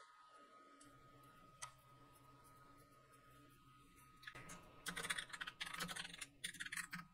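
Faint typing on a computer keyboard: a single click about a second and a half in, then a quick run of keystrokes over the last three seconds.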